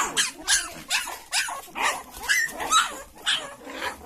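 A litter of young Rottweiler puppies yipping and crying together: short high cries, about two a second, overlapping one another.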